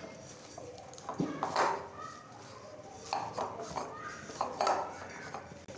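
Hands kneading and pressing an oily semolina dough studded with chopped dry fruits in a bowl. Soft squishing and scraping comes through, with fingers and knuckles knocking against the bowl's side several times.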